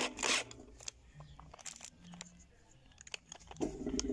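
A cordless drill runs in a short burst at the start, driving a screw that draws down the spring-loaded brake assembly of a Maytag washer transmission. After that come faint scattered clicks of the drill and parts being handled.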